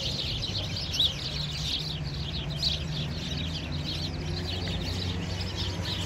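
A flock of house sparrows chirping busily and continuously, many overlapping calls at once, with a few louder chirps standing out about a second in and again a little later. A low steady hum runs underneath.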